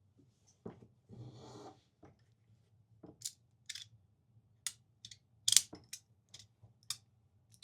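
Magnetic fidget slider worked by hand: after a little handling rustle, its plates snap into place with a string of sharp clicks, roughly two a second, starting about three seconds in.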